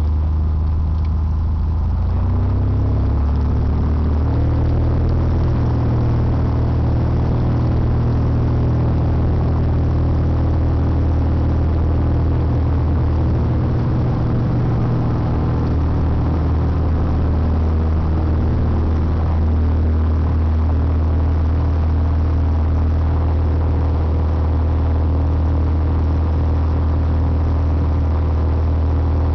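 Piper PA-28-236 Dakota's six-cylinder Lycoming engine and propeller at full take-off power, heard from inside the cabin. The pitch rises over the first few seconds as the engine comes up to power, then holds steady through the take-off roll and climb-out.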